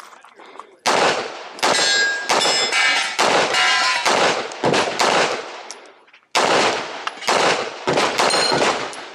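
Pistol shots fired one after another, roughly every half second to a second, with a pause of about a second past the middle; several are followed by the ringing ping of hit steel targets.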